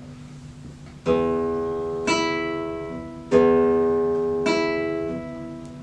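Classical guitar played with thumb strokes: four plucked notes about a second apart, each ringing out and slowly decaying.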